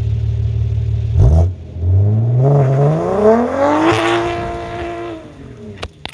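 BMW 340i's B58 turbocharged inline-six engine idling, then revved. After a short blip the pitch climbs over about two seconds, holds briefly and falls back toward idle.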